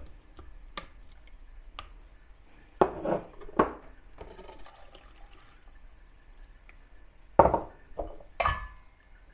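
Kitchen handling sounds: a plastic blender chopper bowl is loaded with raw turkey pieces and its parts are handled, giving a few scattered knocks and clunks in two clusters. The last one, near the end, rings briefly like metal.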